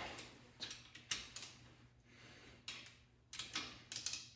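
A socket ratchet clicks in short, irregular runs as it is swung back and forth to tighten a Ford 4.6L DOHC connecting-rod cap bolt. This is the final additional-90-degree stage on torque-to-yield bolts.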